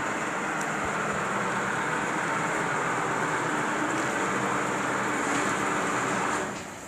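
Builders' material hoist (tower hoist) winch running steadily as the cage travels down the mast, then stopping near the end.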